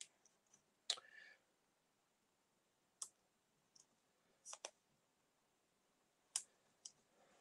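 Light clicks and taps of small card pieces and foam pads being handled and pressed onto a glass craft mat, about six scattered ones with near silence between, the sharpest about a second in.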